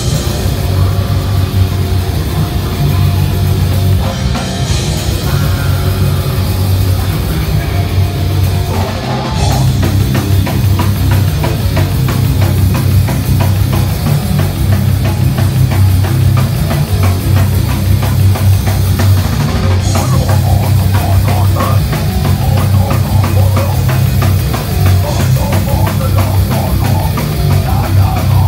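Punk band playing live at full volume: distorted electric guitars, bass and a drum kit in a fast, heavy beat. The drumming grows denser about nine seconds in.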